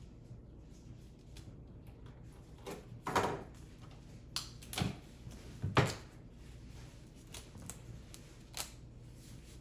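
Double-sided tape being cut into small pieces and handled: a handful of short clicks and scrapes, the loudest about three and six seconds in.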